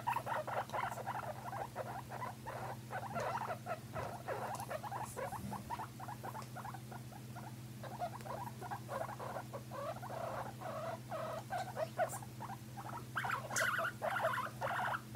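Guinea pigs squeaking: a long run of short, rapid squeaks that eases off for a couple of seconds mid-way, then picks up again.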